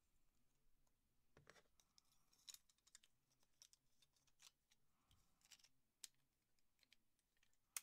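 Faint clicks and small scrapes of a knife being handled as its old blade is swapped for a fresh one, scattered irregularly over near silence.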